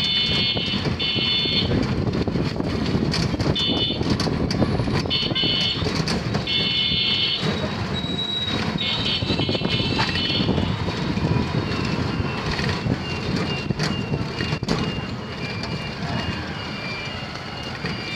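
Rumble and rattling of an open three-wheeled rickshaw riding over a town street, with several short, shrill electric horn blasts in the first ten seconds. A faint beep repeats steadily over the last six seconds.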